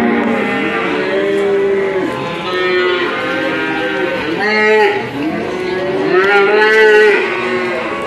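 Many cattle mooing, their long calls overlapping one another, with the loudest about three-quarters of the way through.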